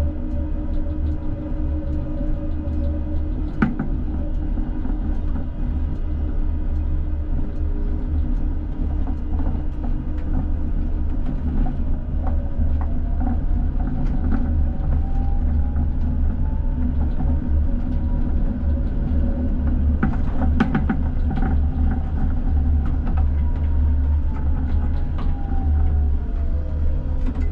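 Two coupled ČKD Tatra T6A5 trams running, heard from the driver's cab: a steady deep rumble with clicks and knocks of the wheels over rail joints, and a whine that slowly rises in pitch and later falls again.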